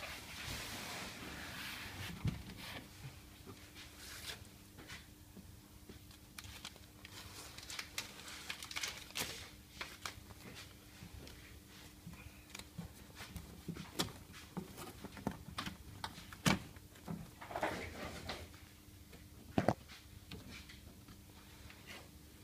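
Hands pressing and smoothing a sheet of sound-deadening material onto the inner metal of a car door: soft rustling with scattered sharp taps and knocks.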